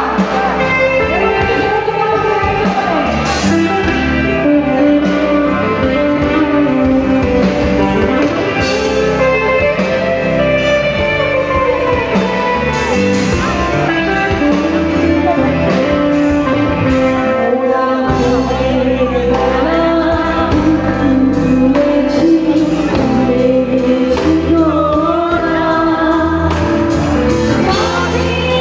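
A woman singing a slow melody into a microphone with a live band of electric guitar, bass guitar and drum kit, amplified through a PA.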